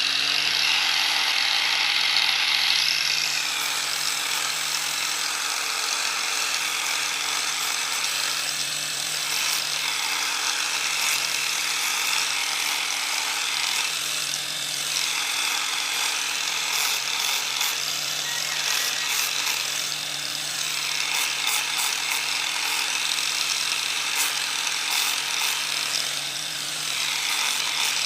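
A small handheld electric power tool running continuously on bamboo, with a steady motor whine whose note dips briefly now and then.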